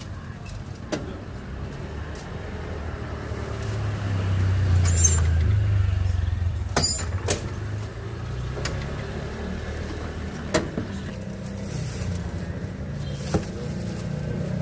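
Road traffic: a low vehicle rumble that swells about four to seven seconds in, with a few short sharp clicks and clinks scattered through.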